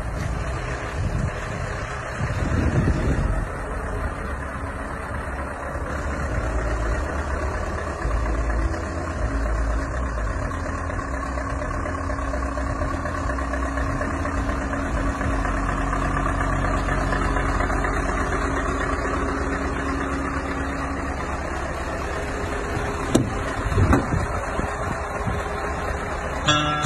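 Scania Next Generation truck's diesel engine idling steadily, heard close by, with a couple of short knocks near the end.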